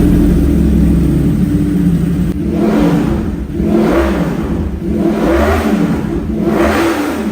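2021 Yamaha YZF-R1's crossplane inline-four with an SC-Project exhaust, running at steady revs, then revved in four quick blips about a second apart, the pitch rising and falling each time.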